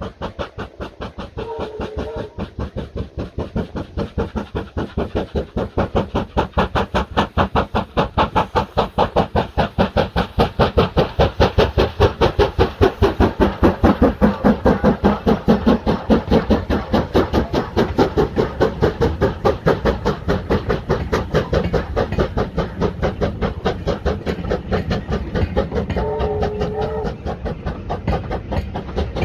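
USATC S160 2-8-0 steam locomotive exhaust beating fast and evenly, about three to four beats a second, growing louder to a peak about halfway through and easing off after.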